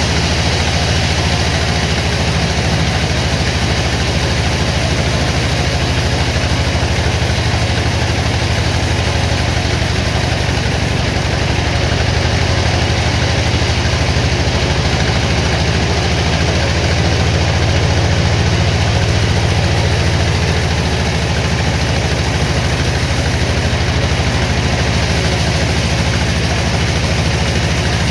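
Sawmill machinery running: a loud, steady engine-like drone that holds even throughout.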